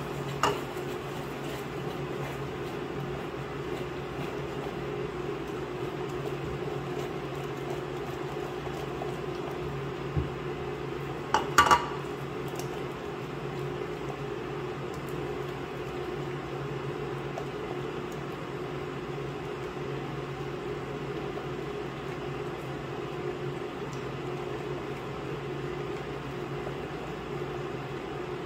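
Silicone spatula stirring in a stainless steel saucepan, with a few sharp knocks against the pot and a louder cluster of knocks a bit before halfway. A steady machine hum runs underneath.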